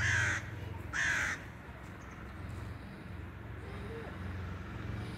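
A crow cawing twice: two short caws about a second apart.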